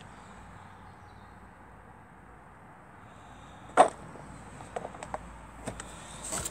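Faint outdoor background, broken by a single sharp knock a little past halfway through, then a few light clicks.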